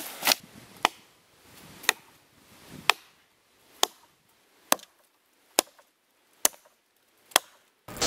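Small hatchet chopping into a fallen log: nine sharp blows, about one a second.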